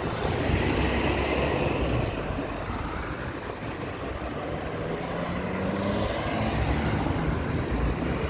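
Road traffic with vehicles running past. About five to seven seconds in, one engine's pitch rises and then falls.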